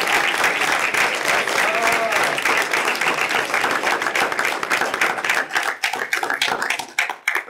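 Audience applauding: a dense round of clapping that thins to a few scattered claps over the last couple of seconds and dies away just before the end.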